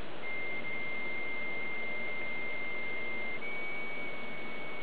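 Dial-up modem handshake over the modem's speaker: a steady answer tone for about three seconds, then a step to a slightly higher steady carrier tone, over a constant line hiss. This is the 300 bps modem connection being made.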